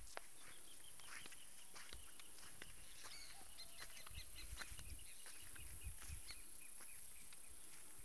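Faint small birds chirping in short repeated high notes over a steady high hiss, with a few soft footsteps on rock in the middle.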